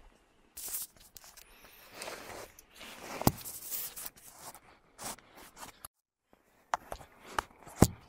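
Camera handling noise: irregular rustling and scraping with several sharp clicks and knocks as the phone is moved and set down low on the board. The loudest knocks come in a quick cluster near the end.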